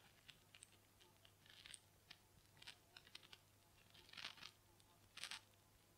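Near silence: room tone with a few faint, soft rustles and ticks.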